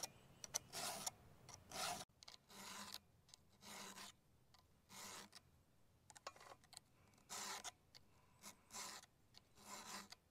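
Hand file being stroked across the cutters of a chainsaw chain to sharpen it, about one file stroke a second.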